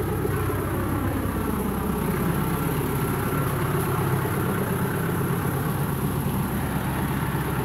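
Tractor engine running steadily, a low even hum that neither rises nor falls.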